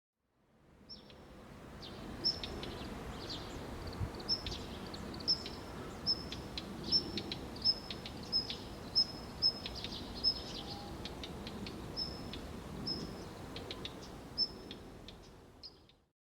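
A small songbird giving short, sharp, high call notes, each dipping slightly in pitch, repeated about once or twice a second. These are the bird's call notes rather than song.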